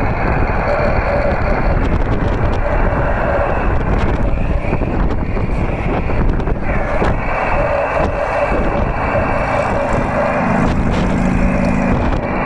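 Heavy wind buffeting the microphone over a Yaesu transceiver's receiver audio: steady hiss with a rough, hissy CW tone that fades out about two seconds in and comes back strong about halfway through, the smeared sound of a 10 GHz signal scattered off rain.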